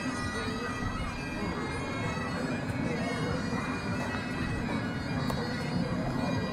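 Bagpipes playing: steady drones under a moving chanter melody.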